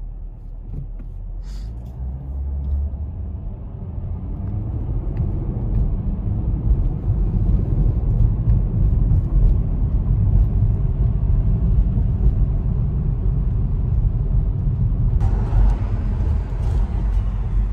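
Low, steady rumble of a car driving, heard from inside the cabin, growing louder over the first several seconds. A brighter hiss joins in near the end.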